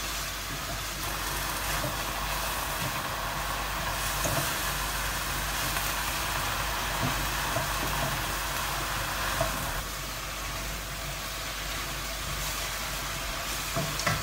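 Vegetables sizzling steadily in a hot wok over a gas flame, with a few light clicks. The hiss drops a little about ten seconds in.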